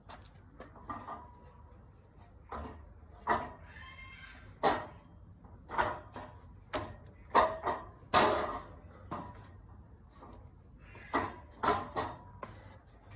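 Irregular knocks and creaks from a dip stand as a person swings hand to hand between its two bars, monkey-bar style; about a dozen knocks, loudest around the middle, some with a short ring after.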